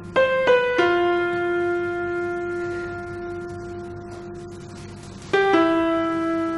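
Slow instrumental background music: three notes struck in quick succession at the start, each left to ring and fade, then two more about five seconds in.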